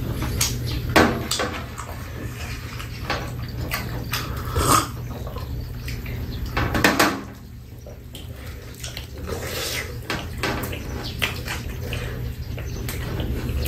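Eating at a table: chewing and sipping with scattered clinks and knocks of ceramic mugs and a bowl on a metal tray, over a steady low hum.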